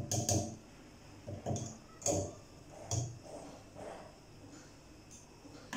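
A few short knocks and clatters, about one a second, as a stick blender is lifted out of a plastic cup and put down on the counter, its motor off.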